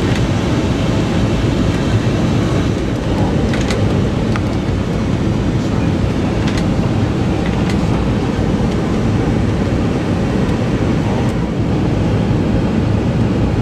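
Steady rush of cockpit noise in an Embraer Legacy 600 business jet on final approach: airflow and engine noise at an even level, with a few faint clicks.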